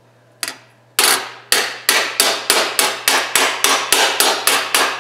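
A hammer striking a sheet-metal repair panel clamped in a bench vise, closing up a bend in it: a single blow, then from about a second in a steady run of blows about three a second, each ringing briefly.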